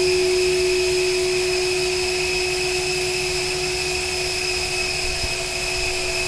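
CNC router spindle running with a steady high whine as its facing cutter takes a light 0.1 mm pass along an aluminum rail channel.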